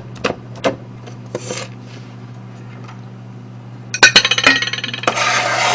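A chef's knife makes a couple of sharp chops on a plastic cutting board chopping peanuts. About four seconds in comes a clatter of the knife and board, then a loud scraping rush as the chopped peanuts are scraped off the board into a stainless steel bowl.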